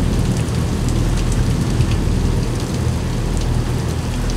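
Heavy rain falling steadily, with scattered drops ticking and a steady low rumble underneath.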